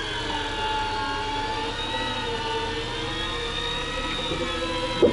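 A boat's engine running steadily with a whine that drifts slightly up and down in pitch, heard from inside the cabin. A short knock comes near the end.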